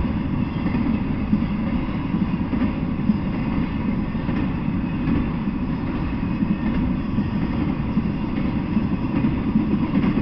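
Intermodal freight train rolling past: a steady, low rumble of steel wheels on the rails.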